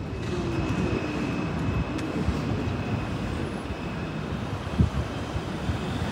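Road traffic ambience: a steady low rumble of vehicles, with a single brief thump about five seconds in.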